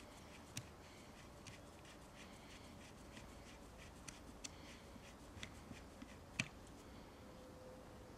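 Faint, scattered clicks and ticks of a screwdriver and small screw being worked into a chainsaw carburettor during reassembly; the sharpest click comes about six seconds in.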